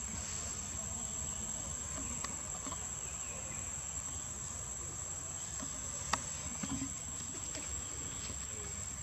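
Steady high-pitched drone of insects, with one sharp click about six seconds in.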